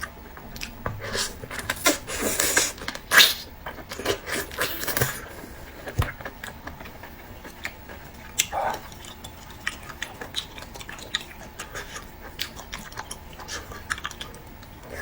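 Close-miked eating sounds: a person biting and chewing food. A quick run of mouth clicks comes in the first five seconds, then fewer, scattered ones.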